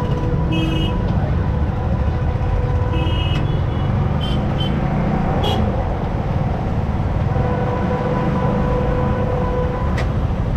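Steady rumble of a moving motorcycle and the wind of riding in road traffic, with several short vehicle horn beeps in the first half.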